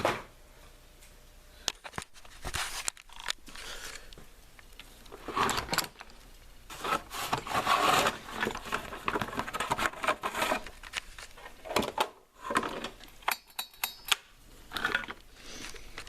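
Chainsaw recoil starter being tried out after a new pull rope was fitted: the rope is pulled out and rewinds several times, giving rasping whirs mixed with clicks and handling knocks. No engine runs.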